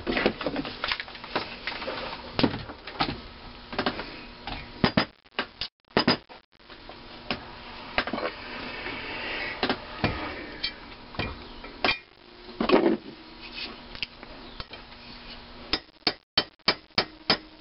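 Metal tools and a small cast-iron cylinder head clanking and knocking on a workbench as they are handled and moved, with a quick run of clicks near the end.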